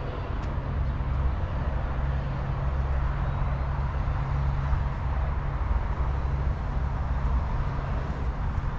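Steady low rumble of outdoor background noise, with a hiss above it.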